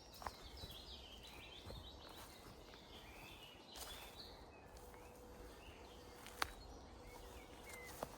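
Faint songbird song: quick runs of high stepping notes near the start and again about four seconds in. A single sharp click sounds about six and a half seconds in.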